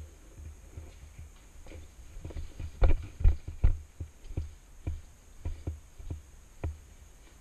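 Footsteps thudding on a hard floor, a quick cluster around three seconds in, then settling to about two steps a second.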